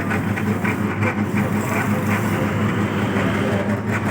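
Abdullah AE-390 electric dough kneader running after being switched on, its motor humming steadily with a fast, regular rattle over the hum.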